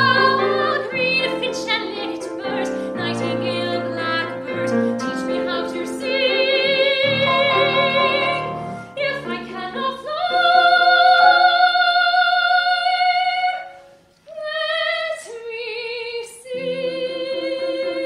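A woman singing a classical-style song with vibrato, accompanied by a grand piano. Past the middle she holds one long high note for about three seconds, sings a short rising phrase after a brief pause, and the piano carries on near the end.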